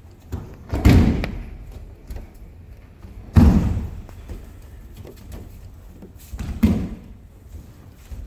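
Three heavy thuds of an aikido partner taking breakfalls onto tatami mats, a few seconds apart, each trailing off briefly, with light footfalls and taps on the mats between.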